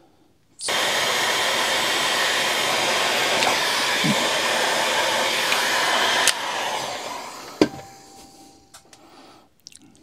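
Electric heat gun blowing hot air to shrink heat-shrink tubing over a soldered cable joint. It switches on about half a second in with a steady rushing blast, is switched off with a click about six seconds in, and its fan runs down. A single knock follows shortly after.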